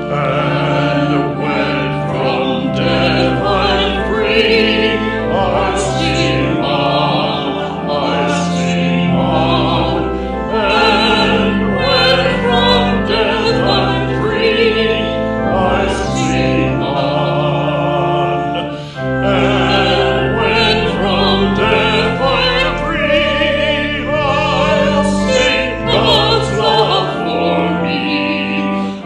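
Choral singing with instrumental accompaniment, slow sustained notes; a short pause about 19 seconds in, between phrases.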